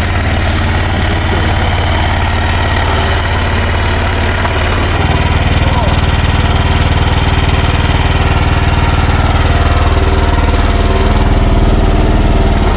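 Future FT15 mini excavator's engine running steadily while the machine is being moved, getting a little louder about five seconds in.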